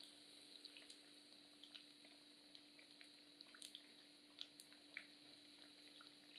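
Faint sizzling of stuffed tofu deep-frying in oil, with scattered small pops and crackles. The pieces are fried to a dry brown outside and ready to lift out.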